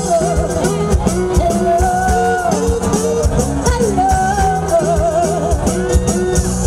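Live band playing with a woman singing, her held notes wavering in vibrato over a steady bass and drum beat.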